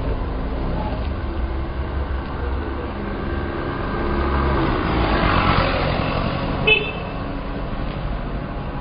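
Motorcycle engine running low and steady amid traffic noise that swells and fades, with one short horn beep about two-thirds of the way through.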